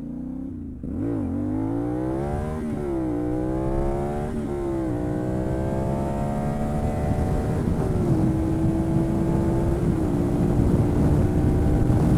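CFMoto 450NK parallel-twin engine through a KO Lightning aftermarket exhaust, accelerating hard with the revs climbing and dropping back at three upshifts, then holding steady at cruising speed. Wind rush on the onboard microphone grows as the bike picks up speed.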